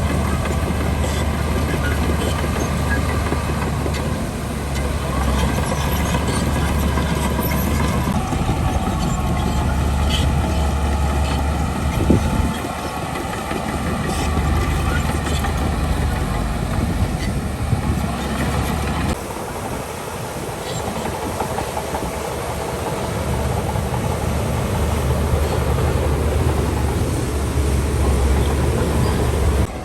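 Heavy diesel earthmoving machinery, a crawler bulldozer working with dump trucks, running steadily with a deep engine hum and occasional metallic clanks. The sound jumps abruptly a few times, about 8, 12 and 19 seconds in.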